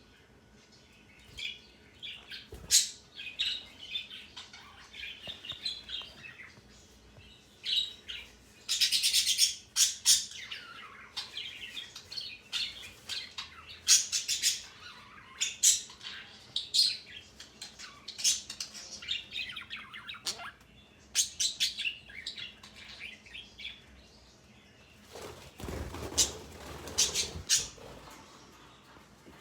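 Pet parrot calling over and over: short high chirps and harsher squawks, with a louder, longer harsh call about nine seconds in.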